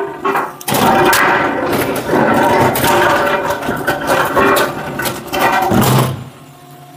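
Hydraulic log splitter splitting camping-size firewood: a dense run of wooden knocks and clatter over machine noise, dropping away about six seconds in.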